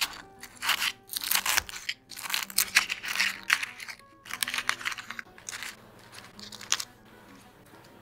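Crisp, crinkly crackling in several bursts as crunchy deep-fried chicken karaage and a pleated paper food cup are pressed and handled into a lunch box with chopsticks and fingers. Soft background music plays underneath.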